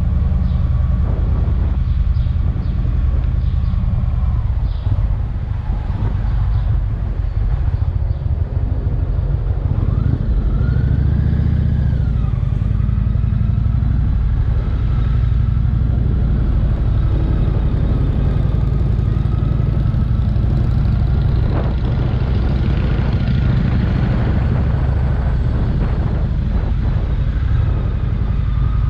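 Indian V-twin touring motorcycle running at low speed in city riding, heard from the rider's seat. It runs steadily, with a brief rising and falling whine about ten seconds in.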